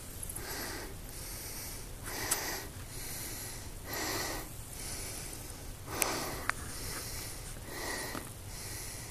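A person breathing close to the microphone, slow and even, one breath about every two seconds, with a few light clicks.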